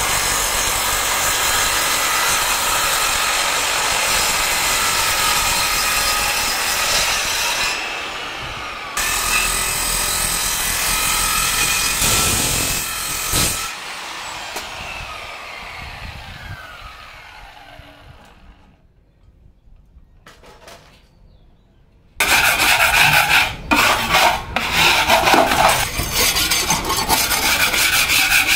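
Wood being sawn. There is a steady cutting noise for about thirteen seconds that fades away, a few seconds of near quiet, then loud, uneven back-and-forth rasping strokes.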